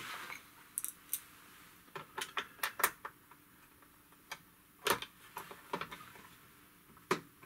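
Small screws and a screwdriver clicking against the plastic bottom case of a TRS-80 Model 200 laptop as screws are driven in: about a dozen sharp, scattered clicks and taps.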